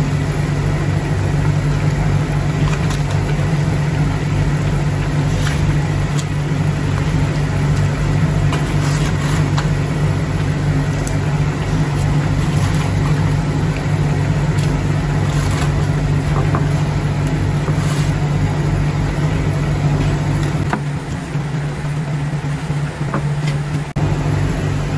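Steady low mechanical hum, like a motor or fan running, with a few faint clicks; its deepest part drops away for a few seconds near the end.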